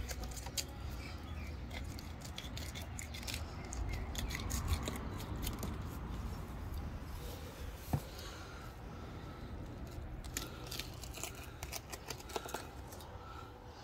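Filleting knife cutting along a large snapper, crunching through its big scales and skin in runs of crisp clicks, densest in the first few seconds and again near the end, with one sharper knock about eight seconds in.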